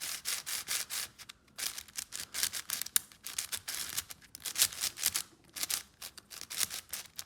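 MoYu AoFu WRM 7x7 speedcube being turned quickly by hand: a rapid, irregular run of plastic clicks and scrapes as the layers turn, with a couple of short pauses. The cube is fresh out of the box and still a bit sandy in its turning.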